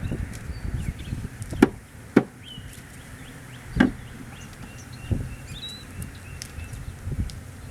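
Sharp knocks of wooden beehive parts being handled, five of them spread over several seconds, the loudest two close together about one and a half to two seconds in.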